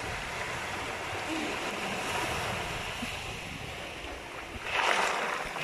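Small waves washing up onto a pebbly beach, with wind rumbling on the microphone; one wave breaks louder near the end.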